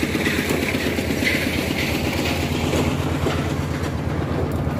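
A small engine running steadily at a constant speed, with a fast, even chugging beat.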